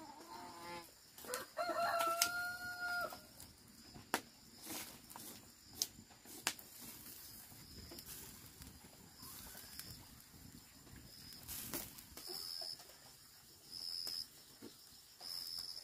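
A rooster crowing once, its call held steady and ending about three seconds in, followed by scattered sharp knocks and a few short high buzzes toward the end.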